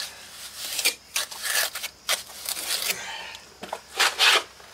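Gritty scraping and rubbing as loose bits of broken concrete are worked out of a chipped patio step edge by hand, in several short, irregular strokes, the loudest pair near the end.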